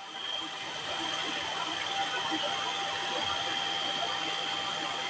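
Food processor motor running steadily with a high whine, blending the chickpea and tahini hummus paste while sunflower oil is streamed in through the feed tube.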